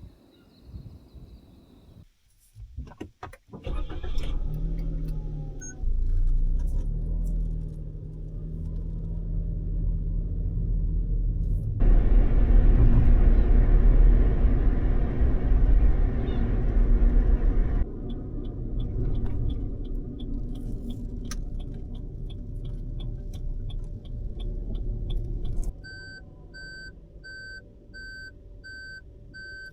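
Suzuki Hustler being started: a few clicks and key jangles, then the engine catches and idles, with a louder rushing stretch in the middle. Near the end the engine sound drops away and an electronic warning chime beeps over and over.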